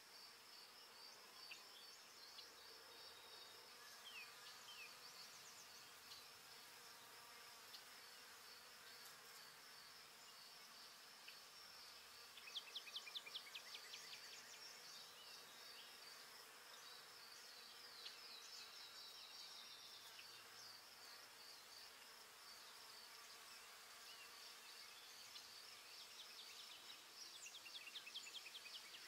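Faint woodland ambience: a steady high-pitched pulsing drone, with runs of rapid high chirps about twelve seconds in and again near the end.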